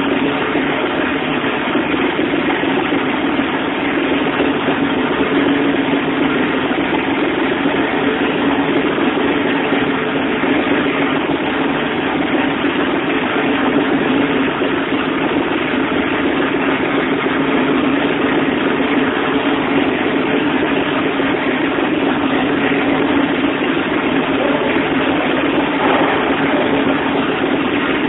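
Alfa Romeo GTV's turbocharged V6 engine idling steadily on its first start-up, with no revving.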